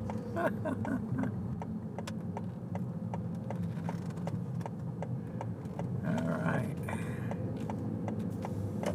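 Car's turn-signal indicator clicking steadily, about three clicks a second, over the low hum of the car's cabin, with faint voices briefly near the start and around six seconds in.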